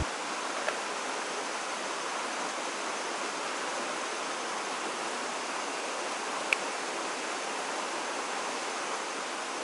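Steady, even rushing background noise. About six and a half seconds in, a single sharp tap is heard as a knife cuts through a sausage onto a wooden cutting board.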